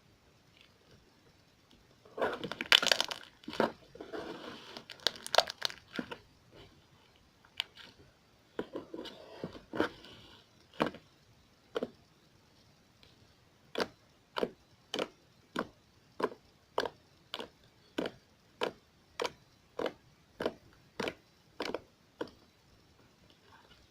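Slime being squished and worked in the hands, with bursts of crackling, then poked over and over, giving a regular run of sharp pops, a little under two a second.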